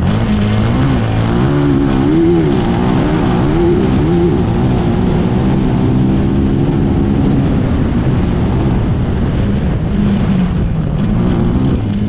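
Class 10 off-road race buggy's engine at speed, recorded onboard: the revs rise and fall quickly in the first few seconds, hold steady through the middle, then drop and climb again near the end, over a constant rush of noise.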